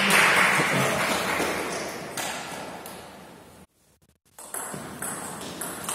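Table tennis rally: the ball clicking off the rubber-covered bats and bouncing on the table, echoing in a large hall. The sound cuts out completely for about half a second two-thirds of the way through, then the ball hits resume.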